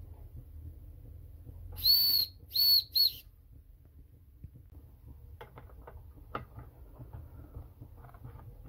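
Steam whistle on a Wilesco D16 model stationary steam engine's boiler, blown in three short blasts about two seconds in, the first the longest, each a high steady tone. Whistling this way shows whether the boiler has built up enough steam to run the engine. Light clicks and knocks of handling follow.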